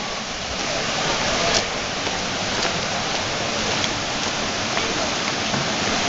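River water rushing over rocks in a small cascade: a steady, dense hiss, with faint voices and a few light clicks over it.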